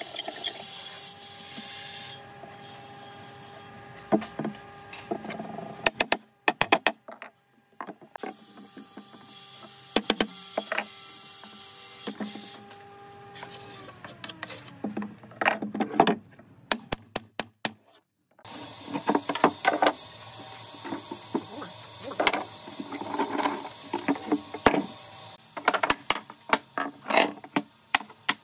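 Workshop sounds: a steady motor hum that winds down about halfway through, and many sharp knocks and taps of tools on wood.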